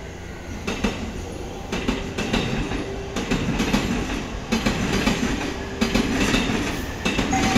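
A JR East E257 series electric train standing at a station platform, its onboard equipment giving a steady low hum and rumble, with scattered short knocks. A steady tone starts near the end.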